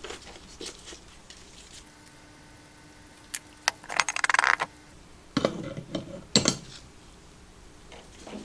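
Crankshaft and its gears being set into a machined aluminium crankcase and lifted out again for a test fit, with scattered metallic clinks and knocks and a short rustle of handling about four seconds in. The parts are being tried for clearance between rounds of grinding.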